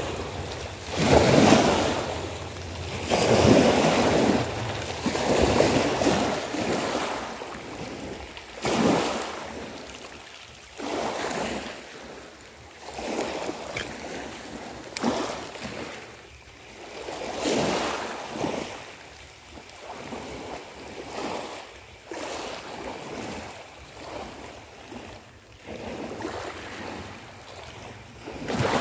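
Small waves washing in over a pebble beach, rising and falling in swells every couple of seconds, loudest in the first several seconds, with some wind noise on the microphone.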